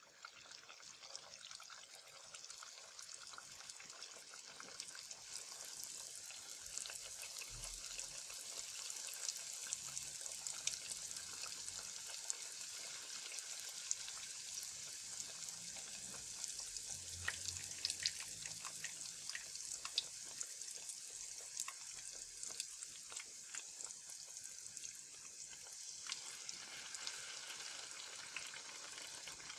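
Squares of dough deep-frying in hot oil in a pot: a dense sizzle with scattered sharp pops, swelling over the first few seconds and then holding steady.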